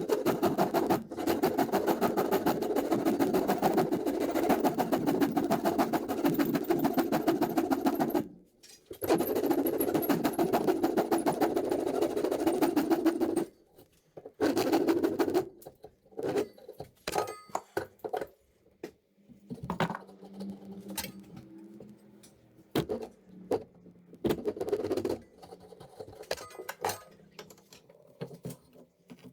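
Rapid rasping strokes on the oak hatchet handle in three spells, the first two several seconds long, then scattered light knocks and clicks from the wood and tools.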